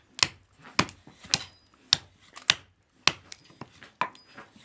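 Hatchet chopping a wooden spoon blank held on a chopping block, roughing out its shape: a steady run of sharp chops, about two a second.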